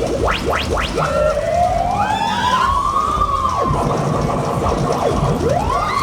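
Fairground ride's sound system playing loud music with siren-like effects: a few quick rising zaps at the start, then a slow wailing tone that climbs and falls, and rises again near the end.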